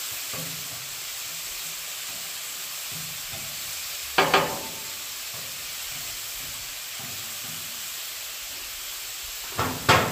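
Diced chicken, peppers and onions sizzling steadily on a Pit Boss gas griddle's flat top. A spatula knocks against the griddle plate about four seconds in and again near the end.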